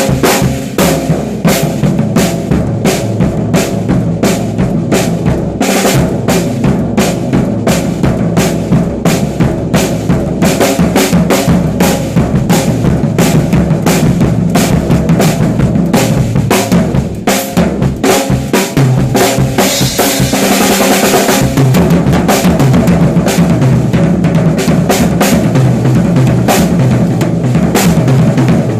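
Band music driven by a drum kit: rapid, even drum hits over sustained bass-heavy instruments, with a cymbal wash about twenty seconds in.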